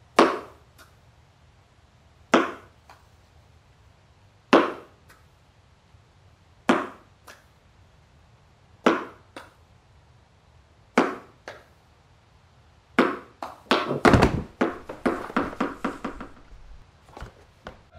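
A tennis ball thrown against a wall, hitting with a thunk about every two seconds, each followed by a softer second tap. In the last few seconds the knocks come quicker and closer together, mixed with bumps.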